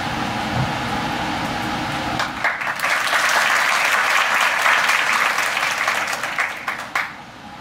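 Audience applauding, starting about two seconds in and stopping suddenly near the end.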